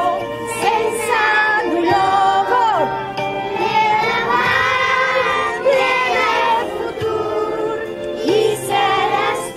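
A children's choir singing a song in Catalan with instrumental accompaniment, in phrases of long held notes.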